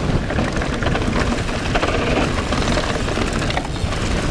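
Steady rushing wind on the rider's camera microphone, with rolling rumble from a mountain bike's tyres as it descends fast over grass.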